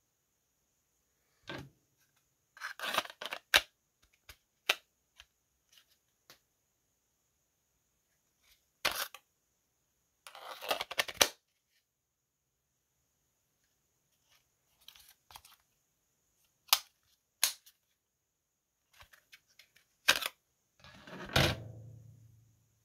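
Scattered clicks and brief scrapes of a fixed-blade knife being handled with its Kydex sheath: the blade slides against the stiff plastic and snaps home with a click. A heavier knock comes near the end.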